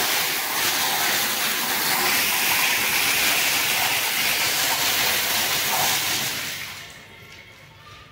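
Water jetting under pump pressure from the open discharge fitting of a monoblock centrifugal pump: a loud, steady hiss of spray that dies away about seven seconds in. It shows the pump drawing from its suction and pushing water out at the outlet.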